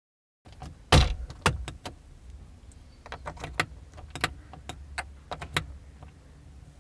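A half-second gap of dead silence, then a string of sharp plastic clicks and knocks, the loudest about a second in, as the Perodua Axia's air conditioning control knobs are pulled off and pushed back onto their shafts. A low steady hum runs underneath.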